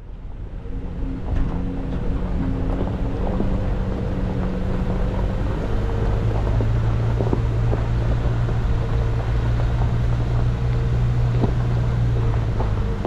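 A Toyota Tacoma's V6 engine running as the truck drives a rough dirt road, with scattered knocks and rattles from the trail. The engine note changes about six seconds in.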